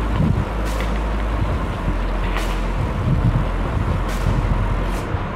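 Steady low rumbling background noise, with short faint hisses recurring about every second and a half.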